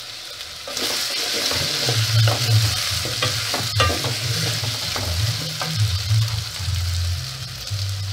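Diced potatoes, onions and grated carrots frying in oil in a stainless steel pot, sizzling. The sizzle grows louder about a second in as the pot is stirred, with a few sharp scrapes and knocks of the spoon against the metal.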